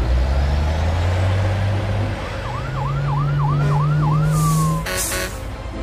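Cartoon fire engine sounding its horn: a long low blast, then a higher blast with a fast yelping siren over it that ends in a falling glide. Music beats start near the end.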